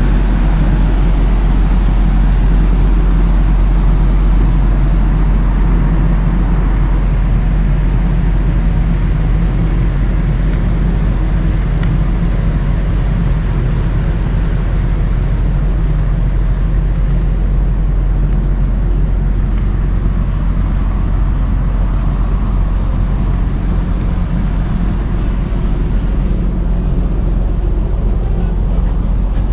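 Loud, steady low rumble on a large ferry's open deck, from the ship's engines, with an even hiss over it.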